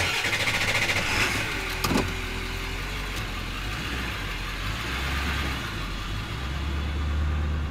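Diesel pickup truck driving: steady engine hum and road noise, the engine note swelling twice, with a short click about two seconds in.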